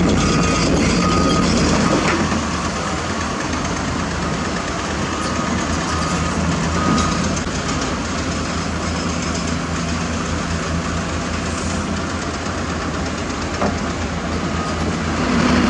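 Heavy diesel engines of an excavator and truck running steadily. Short, evenly spaced beeps of a warning alarm sound over the engines early on and again midway.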